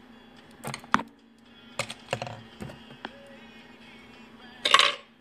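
Plastic suction-cup lip plumper pulling on the lips: a series of short clicks and sucking pops, the loudest and longest one near the end.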